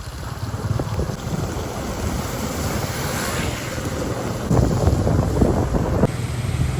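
Wind buffeting the microphone: a steady rushing noise over a low rumble, which changes about six seconds in.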